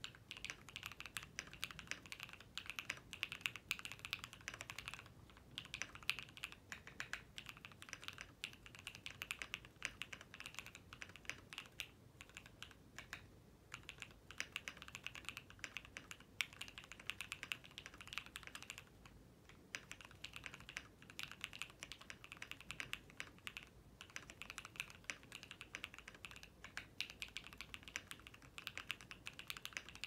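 Custom E7-V2 mechanical keyboard with an aluminum plate, Tropical switches lubed with Krytox 205g0 and GeekArk BOW keycaps, typed on at a steady pace: a fast stream of clacky keystrokes with a few short pauses.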